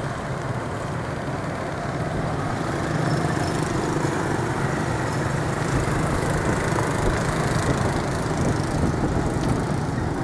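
Steady street traffic noise from small motorbike engines running and passing, with a low engine hum throughout that grows a little louder about two seconds in.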